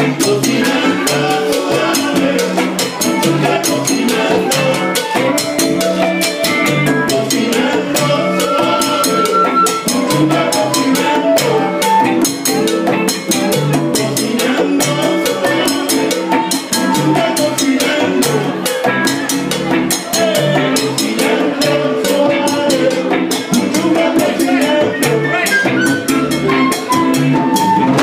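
A live salsa band playing, with drum kit and percussion keeping a dense, busy beat under the melody lines. A run of notes falls in pitch shortly before the end.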